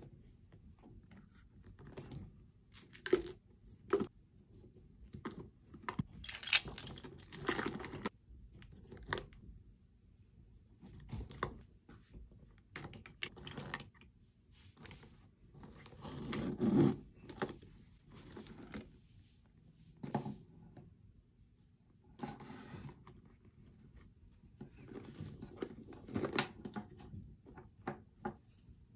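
Irregular rustling, clicking and light clinking as small items are packed into a leather crossbody handbag and pressed into place, with the metal zip and hardware rattling as the bag is closed and handled.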